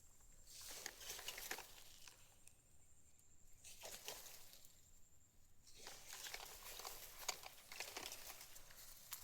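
Faint crackling and rustling in several short spells.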